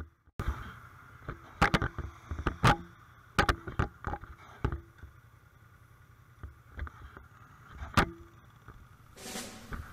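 Honda Magna 250 V-twin motorcycle pulling away, heard faintly through an action camera's microphone, with irregular knocks and bumps on the mic over a low engine hum. Drum-led march music comes in near the end.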